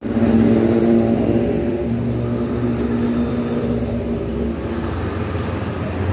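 A nearby engine running steadily at a low, even pitch, swelling and easing slightly.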